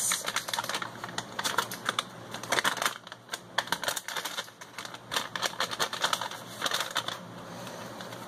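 A packet of dry baking mix crinkling and rustling as it is shaken and tipped out into a stainless steel mixing bowl: an irregular run of crackly clicks.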